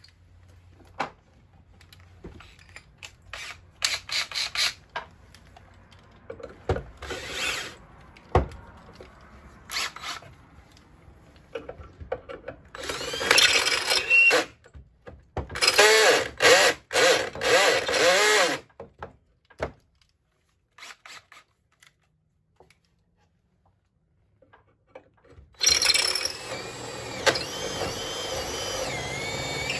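Power drill with a 13/32-inch bit boring bolt holes up through a wooden roof rafter. The motor whine comes in several short runs with a wavering pitch about halfway through, stops for a few seconds, then runs steadily near the end. Scattered knocks and clicks come before the drilling starts.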